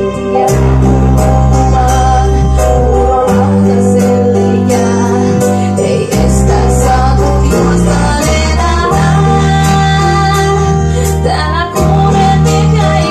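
A woman singing into a handheld microphone over a backing track with a steady beat and a bass line.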